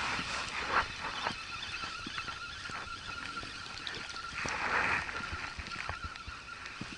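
Water lapping gently against an inflatable boat's hull, with scattered small clicks and a brief rustling swell about four and a half seconds in. A thin steady whine runs underneath.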